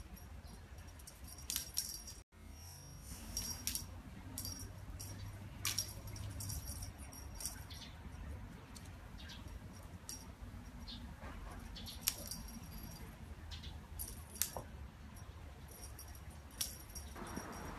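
Scattered light jingling clicks, as of a small bell or metal trinket, over a steady low rumble, with a brief dropout about two seconds in.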